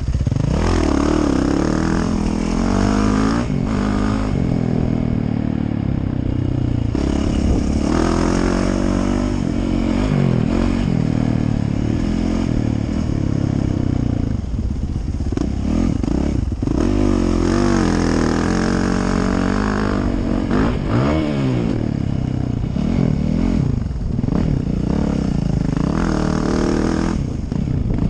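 Yamaha YZ450F motocross bike's four-stroke single-cylinder engine revving up hard and backing off again and again while riding a dirt track, with wind rushing over the microphone at the rider's helmet.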